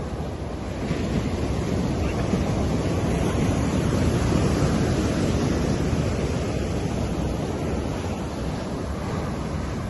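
Ocean surf breaking on a sandy beach: a wave's wash swells about a second in, peaks midway and slowly eases back, over a constant low rumble of the sea.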